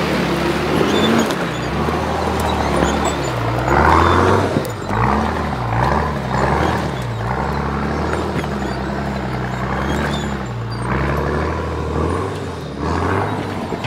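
Nissan GQ Patrol's engine revving up and dropping back again and again as the 4x4 climbs a steep rocky track under load. Its tyres scrabble over loose rock and dirt.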